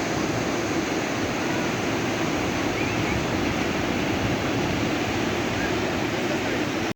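Sea surf: a steady, even rush of waves.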